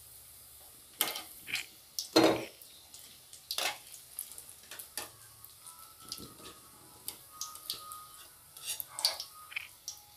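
Potato-paneer cutlets deep-frying in hot oil on a medium-low flame, a faint steady sizzle, with a metal slotted spoon knocking and clinking against the pan several times, loudest about two seconds in.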